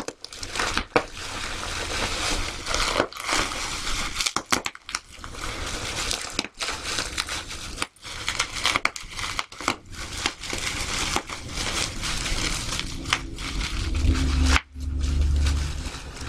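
Plastic bubble wrap being crushed and rolled on, a continuous crinkling and crackling full of sharp clicks. A low rumble comes in near the end.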